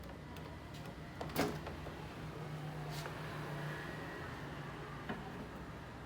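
Microwave oven running with a low steady hum, with a sharp click about a second and a half in and a few lighter clicks.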